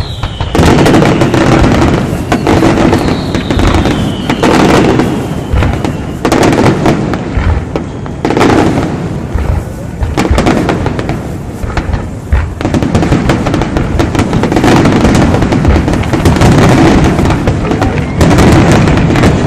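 Fireworks display going off in quick succession: a continuous barrage of bursts and crackling, with falling whistles in the first few seconds, and music playing underneath.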